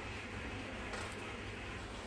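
Steady low hum and hiss of room background noise, with a faint click about a second in.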